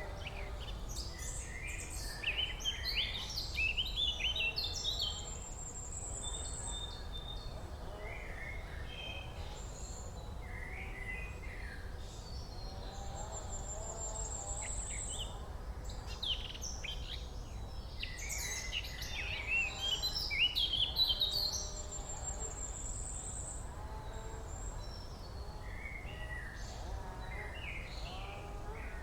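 Several songbirds singing: a mix of chirps and warbled phrases, with one bird repeating a short, high trill about every eight seconds, over a steady low background rumble.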